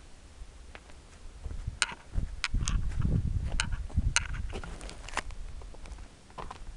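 Footsteps crunching on grit-strewn, snowy pavement: a string of irregular sharp crunches from about two seconds in to past the middle, over an uneven low rumble.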